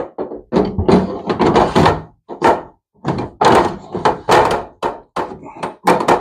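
Shelf panel of a lightweight folding display-counter table being fitted onto its holders: an irregular run of knocks, thunks and scrapes as the panel bumps and slides against the table frame.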